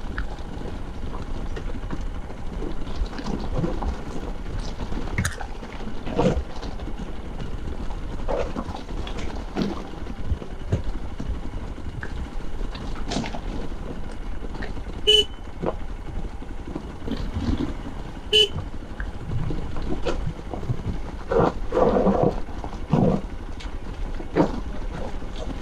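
Hero Xpulse 200 single-cylinder motorcycle engine running at low speed over loose rock, with frequent knocks and clatters from the bike on the stones. Two short horn beeps, about three seconds apart, in the middle.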